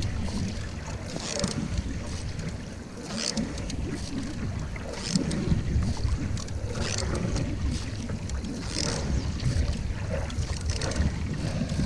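Canoe paddle strokes splashing in the water about every two seconds, over a steady rumble of wind on the microphone.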